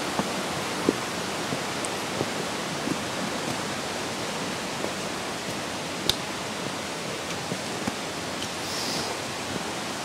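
Steady rushing of a waterfall and mountain stream. A few faint footstep clicks on the stony path, and one sharper crack about six seconds in.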